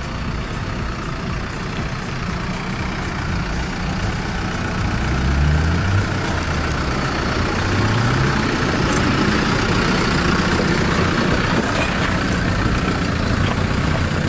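Engines of modified off-road 4x4s running at low revs while crawling over wet rock, revving up twice about halfway through.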